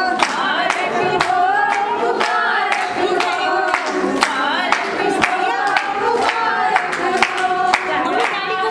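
A group of women singing a wedding song together, unaccompanied, with steady hand-clapping at about two or three claps a second.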